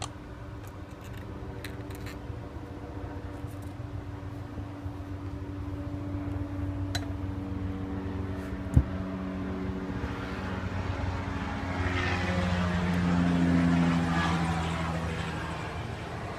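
A steady engine drone with a low hum that grows louder to a peak about three-quarters of the way through, then eases off. A single sharp knock a little past halfway, and a few light clicks in the first couple of seconds.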